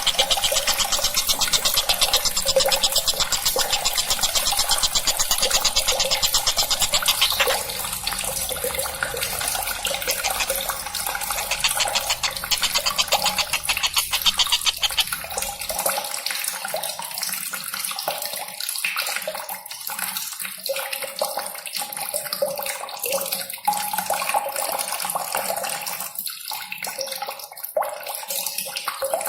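Steady rushing of running water, with a fast, even rattle of ticks over it for the first seven seconds or so.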